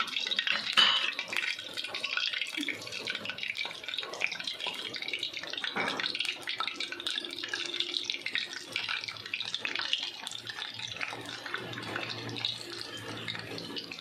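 Hot oil sizzling and crackling in an iron karahi as marinated chicken pieces are dropped into it by hand and start to fry.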